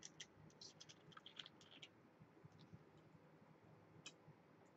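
Near silence with faint, scattered clicks as a plastic soda bottle's screw cap is twisted open and the bottle is handled, most of them in the first two seconds and one more about four seconds in.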